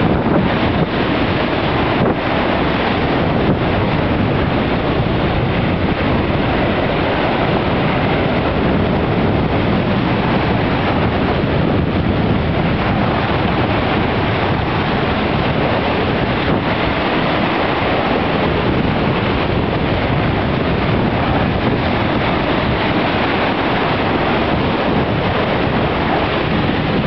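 Surf breaking and washing against a sloping stone seawall: a continuous, steady rush of churning waves, with wind buffeting the microphone.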